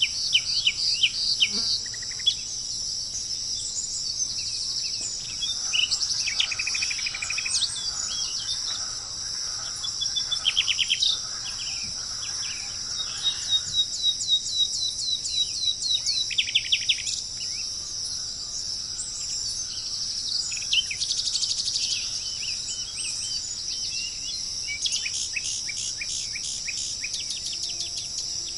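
Songbirds singing over a steady high-pitched insect drone: phrases of fast trills, quick runs of repeated notes and short chirps come and go, some overlapping.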